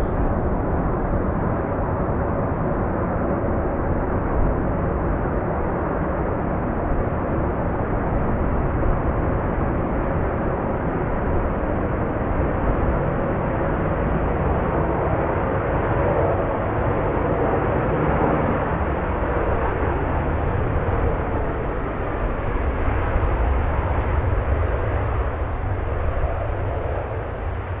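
Airbus A380's jet engines, a steady rumble and roar that holds for the whole stretch, with a faint whine in the middle, as the airliner comes off its double touchdown in gusty crosswind.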